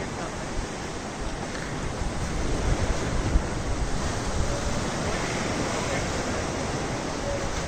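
Choppy sea water washing and splashing steadily, with wind gusting on the microphone.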